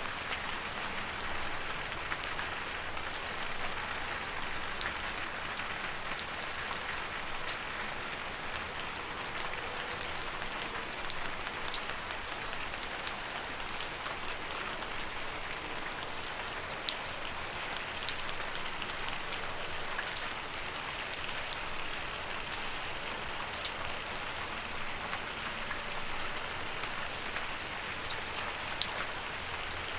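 Steady rain falling, an even patter with many distinct individual drops ticking throughout.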